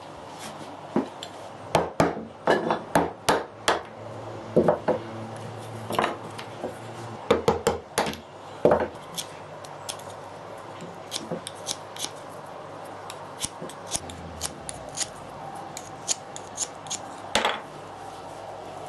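Irregular knocks, clicks and clatter of wood and tools being handled at a workbench, heavier in the first half and lighter taps later on.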